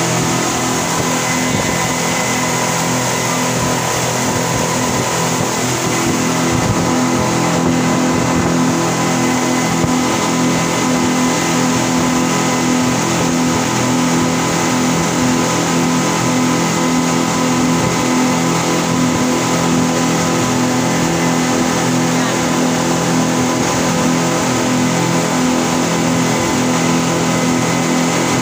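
Passenger speedboat running at cruising speed: a steady engine drone under the rush of water from the wake foaming along the hull. The sound grows slightly louder about six seconds in.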